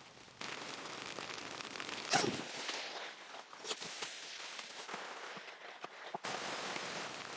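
Heavy rain pattering densely on the fabric of an inflatable tent, a steady crackly patter of countless small drop hits, with a louder short knock about two seconds in.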